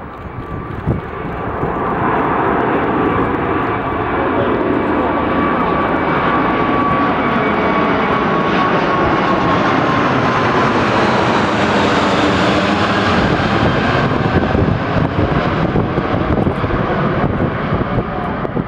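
Airbus A380-861's four Engine Alliance GP7200 turbofans at take-off thrust as the airliner climbs out and passes overhead. A loud jet rumble builds over the first two seconds, with a fan whine that slowly drops in pitch as the aircraft goes over.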